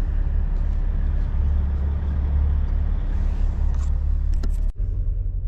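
Heavy truck's diesel engine running with a steady low rumble. There is a brief sudden break near the end, after which the rumble goes on a little different.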